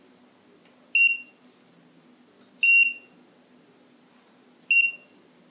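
HT AC F220 soldering station's built-in buzzer giving three short, high beeps, roughly two seconds apart, as its front-panel controls are operated.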